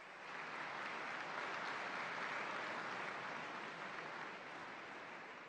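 A large audience applauding. The clapping swells about half a second in and slowly dies away near the end.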